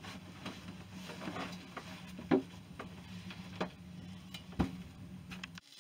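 A person getting up and moving about a small wooden room: light rustling and handling clicks with about three sharp knocks, over a steady low hum. The sound cuts off abruptly near the end.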